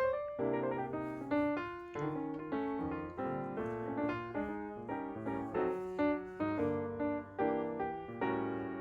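Background piano music: a gentle keyboard melody with chords.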